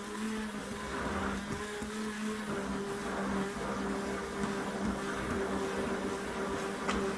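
Handheld stick (immersion) blender running in thick hot-process soap batter, its motor giving a steady hum as it stirs down the self-heating, bubbling soap during the cook. A light click near the end.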